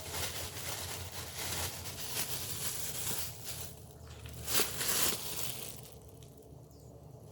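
Rustling and crinkling of things being handled, in uneven bursts that ease off about six seconds in, with the loudest burst a little past the middle.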